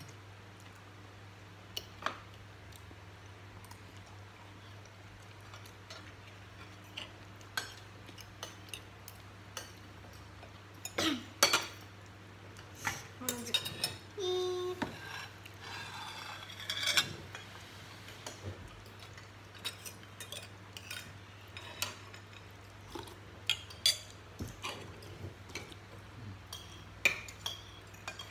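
Metal spoons and forks clinking and scraping against ceramic bowls and plates as people eat, in scattered clinks throughout. About halfway through there is a busier, louder stretch of clatter lasting several seconds. A low steady hum runs underneath.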